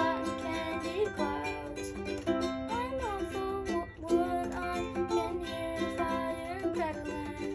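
Music: a plucked-string melody over held notes, playing steadily.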